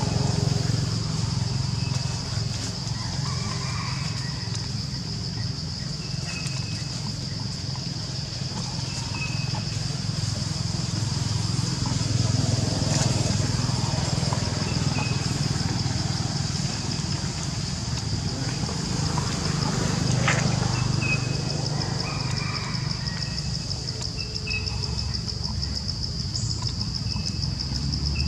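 Insects droning steadily at a high pitch, with short high chirps dotted through and a steady low rumble underneath.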